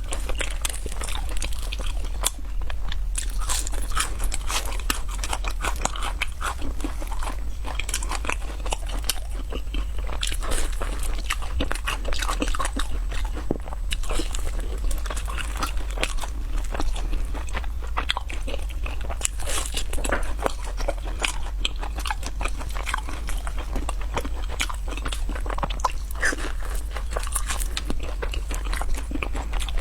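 Crunching and chewing of crispy fried snacks, close to the microphone: a dense, irregular stream of crisp crunches from bites and chews.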